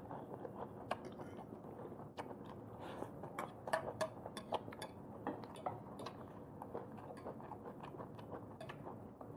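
Close-up eating: faint chewing with many scattered small sharp clicks and smacks.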